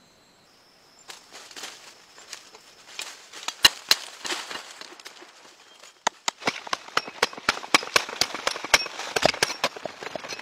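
Sharp knocks of a tool striking and chipping into a hard, dried-earth termite mound. The strikes are scattered at first, then come as a rapid run of about four or five a second in the second half.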